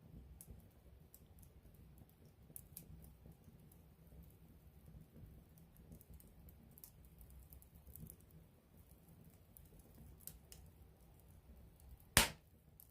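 Wood campfire crackling, with small sharp pops scattered over a soft low rumble of the flames, and one much louder pop near the end.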